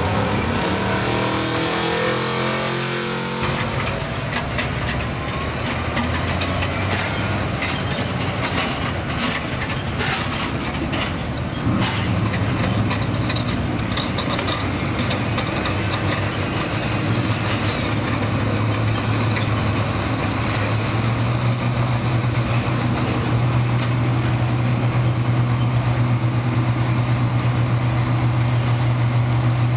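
Pulling-tractor diesel engines: an International tractor's engine winding down, its pitch falling, for the first few seconds, then, after a sudden change, a blue Ford tractor's engine running hooked to the pulling sled, its low steady note growing louder in steps about a third and three quarters of the way through.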